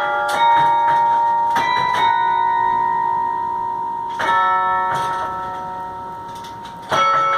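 Carillon bells playing a slow melody: about five notes and chords struck a second or two apart, each left to ring on and fade, with a longer pause in the middle before the next strike near the end.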